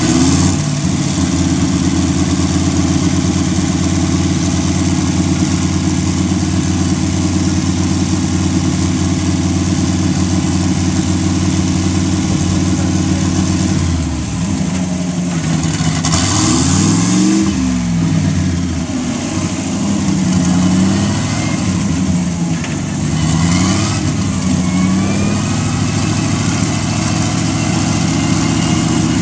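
320 cubic-inch Buick straight-eight engine of a land-speed lakester idling steadily, then revved in a few blips about halfway through, the first the highest, before settling back to idle.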